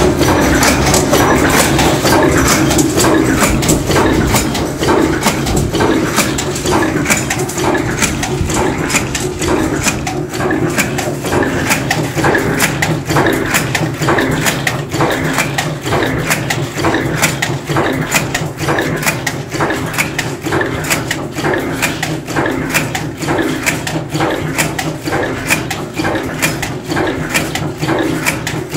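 Multi-station cold forging bolt former running, heading M5 hexagon socket cap screws from 1008 steel wire: a fast, even clatter of the punches striking the dies over a steady machine hum.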